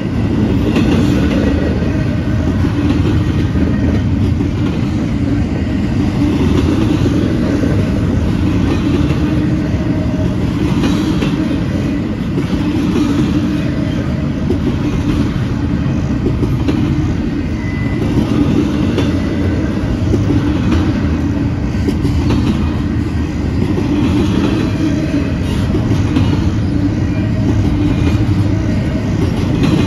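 Double-stack intermodal well cars of a freight train rolling past: a steady rumble of steel wheels on the rails, with wheels clicking over rail joints.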